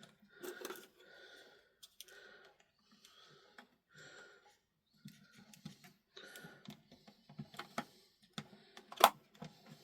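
Small clicks and rustles of hands handling rechargeable batteries and the plastic battery compartment of a Sony ICF-7600D radio, with one sharper click about nine seconds in.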